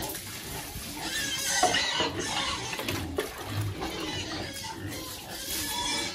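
Pigs calling, a steady run of animal noise, with a couple of sharp knocks about one and a half and three seconds in.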